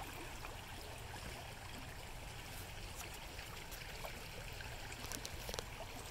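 Shallow river running steadily over a gravel riffle, with a few brief splashes near the end.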